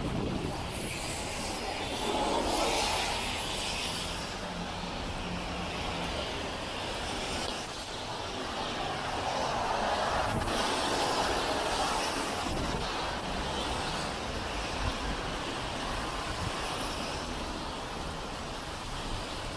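City traffic passing on a wet street: tyre hiss swells as vehicles go by, about two seconds in and again around ten seconds, over a steady low rumble.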